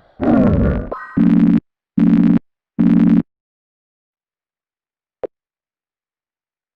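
Telephone call-ended tone: three identical low beeps about 0.8 s apart, after a short sound that falls in pitch. A single click follows about five seconds in.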